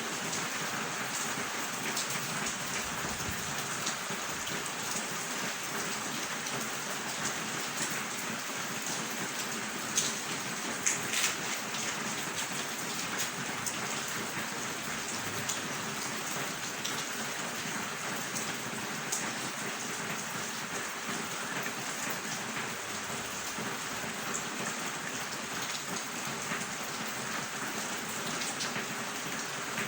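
Steady rainfall: an even hiss of rain with a few louder, sharper drops about ten seconds in.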